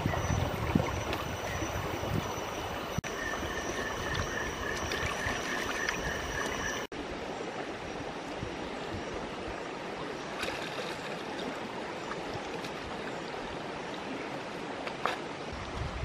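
Shallow, rocky stream flowing steadily, with water sloshing as small shrimp are rinsed in a woven bamboo basket held in the current. A faint, high, rapidly pulsing tone sounds for a few seconds in the first half.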